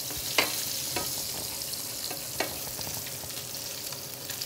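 Salmon fillet sizzling steadily in hot butter and olive oil in an electric skillet, with three short sharp clicks of a spatula against the pan as the fillet is lifted and moved.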